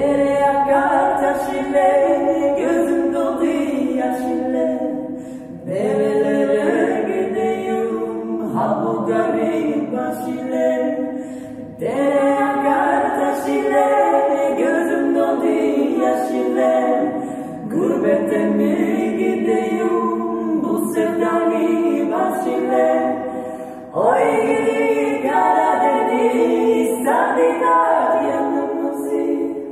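Three women's voices singing a Turkish Black Sea folk song a cappella, several voices in harmony, in phrases of about six seconds.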